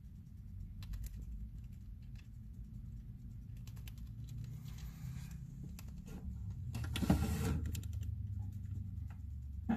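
White pet hamster nibbling a fresh cabbage leaf: small, irregular crisp crunching clicks, with a louder rustle about seven seconds in.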